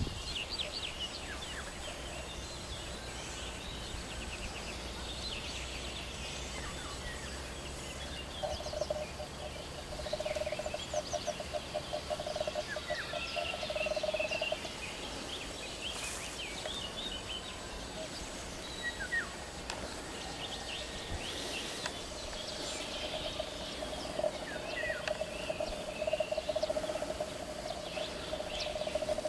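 Songbirds chirping and twittering, with a long, low, rapidly pulsing trill that runs for several seconds twice: about a third of the way in and again near the end.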